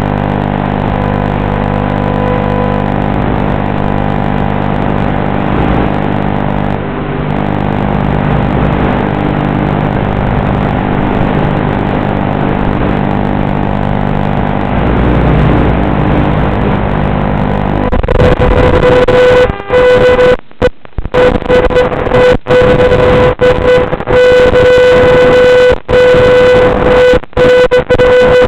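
Audio carried on an FPV racing quadcopter's video feed: a steady electrical buzz of several fixed tones over hiss while the quad sits on the ground. About 18 seconds in it jumps to a louder whine with one strong steady tone that keeps cutting out in short gaps, as the quad gets under way.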